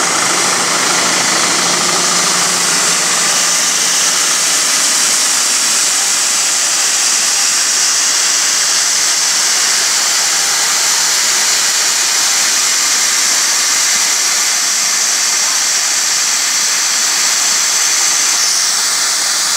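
Steady, loud machinery noise from a corn grain dryer while shelled corn pours from a tipping trailer into the dryer's intake hopper. A tractor engine idles low under it for the first few seconds.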